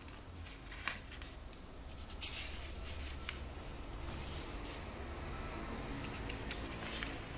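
Packaging around a comic book being handled and opened: scratchy rustling and scraping in short swells, with a few sharp clicks, over a low steady hum.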